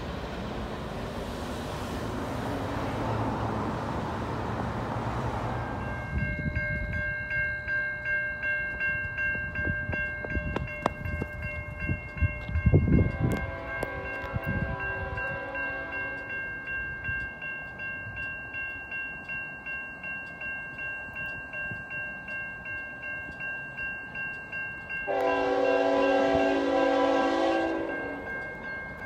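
Level-crossing warning bells start ringing about six seconds in, pulsing steadily, while an approaching freight locomotive sounds its air horn chord twice: once briefly about halfway through and again, louder and longer, near the end. Before the bells there is a steady rushing noise, and a low rumble comes just before the first horn.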